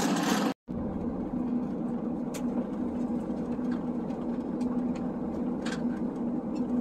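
Inside a vehicle's cabin: the engine runs steadily with a low, even hum and a held tone. A few faint, scattered ticks sound over it.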